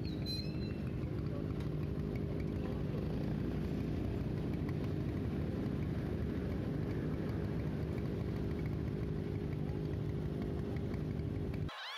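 Motorcycle engines idling in stopped traffic: a steady low hum that cuts off suddenly just before the end.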